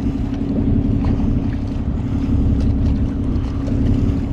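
Steady low rumble of the boat's engine running, with wind buffeting the microphone and a few faint ticks.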